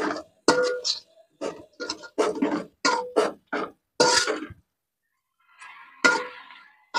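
Steel ladle scraping and knocking against a wide aluminium pan as pork pieces in masala are stirred, about two or three strokes a second, the pan ringing faintly with each. The strokes stop for about a second near the end, then come once more.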